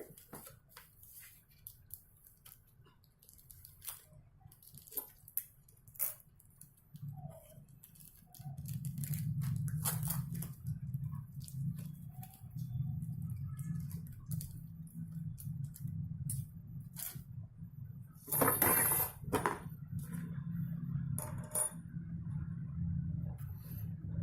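Small metal clicks and clinks from the steel cogs of a 9-speed 11–46T bicycle cassette being handled, with a louder scrape or rustle a little past the middle. A steady low hum comes in about a third of the way through.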